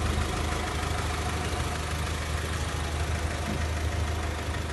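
A machine running steadily: a constant low hum with an even hiss over it.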